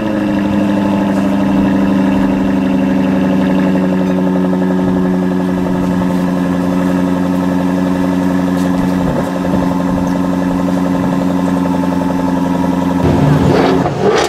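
Jaguar F-Type V8 S's supercharged 5.0-litre V8 idling high and steady through its quad exhausts just after start-up. The steady tone breaks up briefly near the end.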